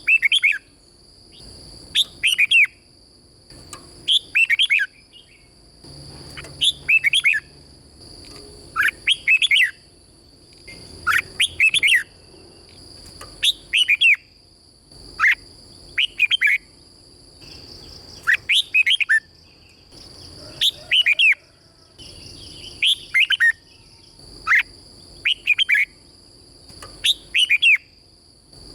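Red-whiskered bulbul singing its doubled song phrase over and over, a short burst of quick whistled notes about every two seconds. A steady high-pitched tone runs underneath.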